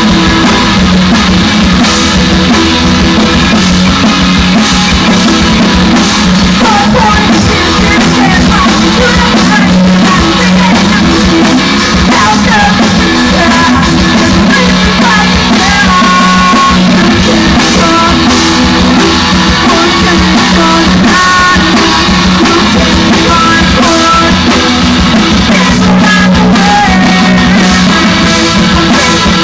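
Live rock band playing loud, with singing over electric guitar and drums. The recording is poor-quality and overloaded.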